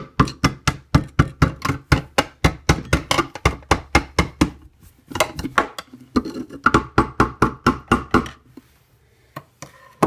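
Hammer tapping the handle of a flathead screwdriver wedged at an angle against the turntable inside an InSinkErator garbage disposal, about four quick strikes a second, with a short pause about halfway and the strikes stopping a little before the end. The taps are meant to knock loose the jammed turntable of a disposal that hums but cannot spin.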